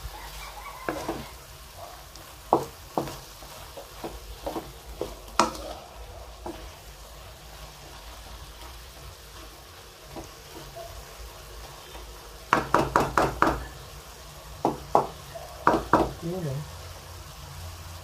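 Wooden spatula scraping and knocking against a wok while stir-frying shrimp and chicken liver, over a steady low sizzle. The strokes come at scattered intervals, with a quick run of about six a little past the middle and a few more soon after.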